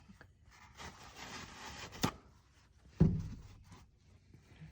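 Hands and tools working on a diesel injection pump as its top section is taken off: light rubbing and handling, a sharp click about two seconds in, and a louder dull knock about a second later.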